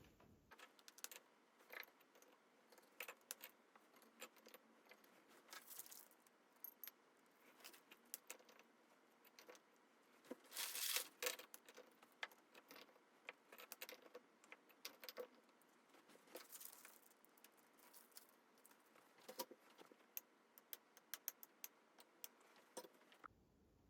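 Light clicks and clinks of small hard objects being handled, irregular throughout, with a short burst of rustling about eleven seconds in.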